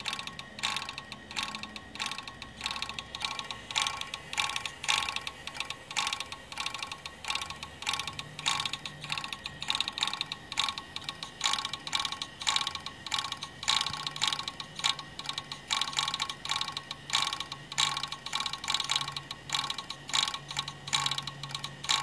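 A failing computer hard drive clicking and chattering loudly, a rapid irregular run of mechanical clicks several times a second over a low steady hum; the drive still works despite the noise.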